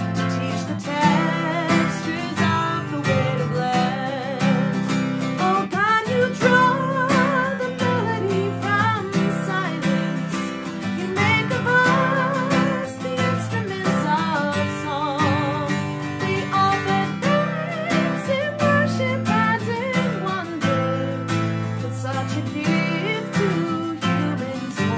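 A solo singer singing a hymn, accompanying themself on a strummed acoustic guitar. The voice carries the melody with a slight vibrato on held notes, over steady guitar chords.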